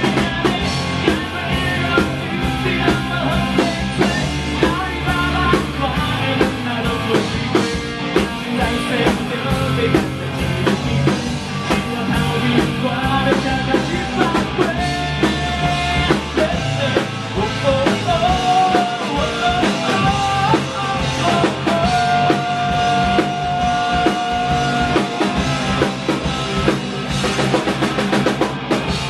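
Live rock band playing loud: drum kit keeping a steady beat under electric guitar and bass guitar, with a male singer's voice.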